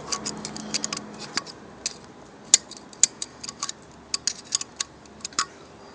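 Irregular metallic clicks and taps of a screwdriver probing among metal parts in a car's engine bay to fish out a dropped key chain, with one sharper click about two and a half seconds in.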